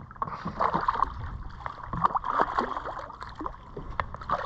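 Irregular splashing and sloshing of water as a hooked snapper thrashes at the surface beside a kayak.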